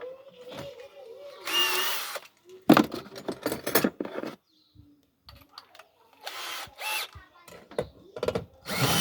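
A power drill is run in several short bursts of about a second each, with pauses between them.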